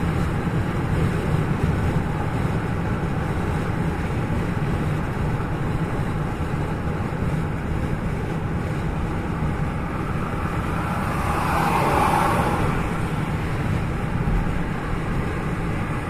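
Steady road and engine noise of a car being driven, heard from inside the cabin, with a brief swell in the noise about two-thirds of the way through.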